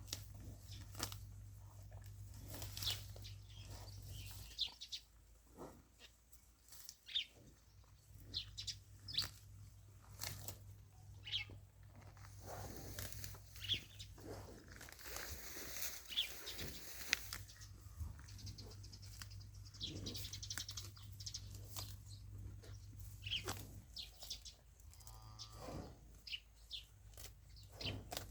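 A grazing animal tearing and chewing grass: a long run of irregular, crisp crunches, over a steady low hum.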